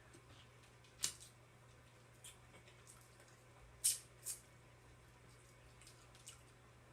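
Faint eating sounds of crab being eaten: a few short, sharp smacks and clicks, the clearest about a second in and two near four seconds, over a low steady hum.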